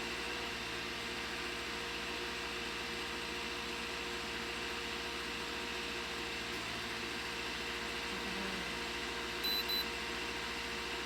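Steady mechanical hum, with a quick double beep from the baler's in-cab control monitor about nine and a half seconds in.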